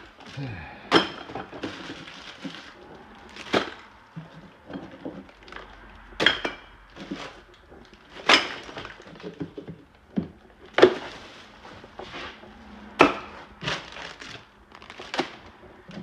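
A series of sharp knocks and bangs at irregular intervals, roughly one every one to two seconds, with some louder than others.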